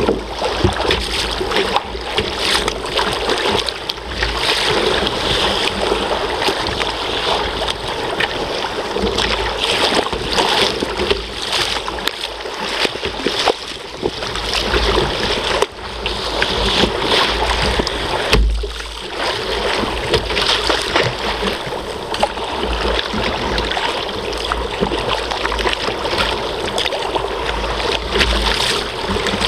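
Rough, choppy sea water splashing and slapping against a sea kayak's hull in heavy rollers, with gusts of headwind buffeting the microphone.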